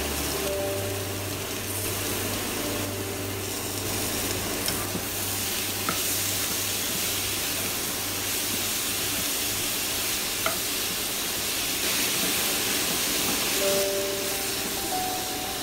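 Cucumber slices and tofu sizzling in a hot wok as a wooden spatula stirs and tosses them, with a few light knocks of the spatula against the pan.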